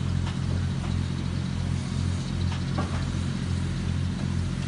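Steady low mechanical rumble, like machinery running, that swells and dips about twice a second, with a few faint clicks over it.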